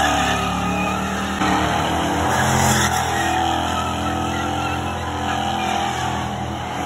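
Classic car's engine held at high revs during a burnout, the rear tyres spinning and smoking. The engine pitch wavers up and down slightly throughout.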